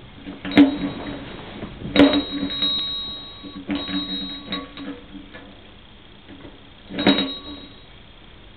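Fire engine bell rung about five times at uneven intervals, each strike ringing on for a second or so.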